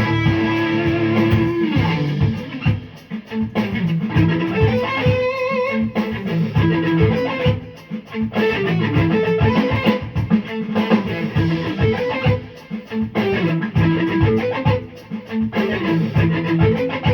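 Music with guitar, at a steady, fairly loud level.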